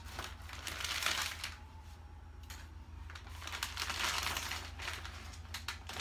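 Kraft wrapping paper crinkling and rustling as a small gift packet is unwrapped by hand, with a quieter spell around the middle.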